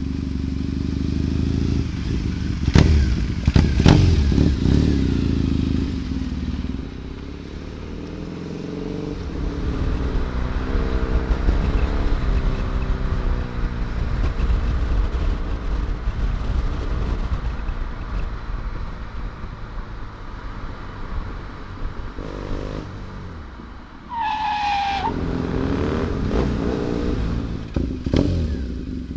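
Triumph Bonneville T100's parallel-twin engine running and revving, its pitch rising and falling as the bike accelerates and eases off. There are two sharp cracks about three and four seconds in.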